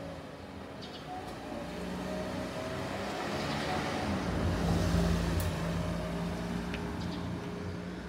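A motor vehicle passing out of sight: its engine hum builds to its loudest about five seconds in, drops slightly in pitch as it goes by, then fades.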